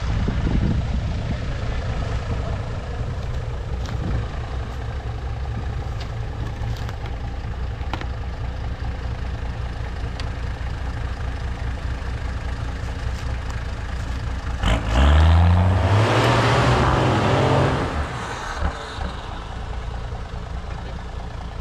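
Toyota LandCruiser ute's engine running at low revs as it crawls over fallen logs, then revving up sharply about fifteen seconds in and holding hard for about three seconds with a harsh scrabbling noise before easing back.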